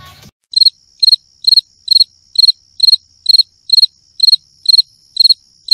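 Cricket chirping, loud and evenly paced at a little over two chirps a second, with a steady high ringing tone beneath. It starts abruptly about half a second in.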